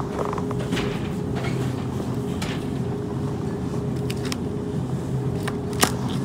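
Steady hum of supermarket refrigeration, the open refrigerated meat case and store cooling, holding two even tones over a low rush. A few short clicks from handling or footsteps, the sharpest near the end.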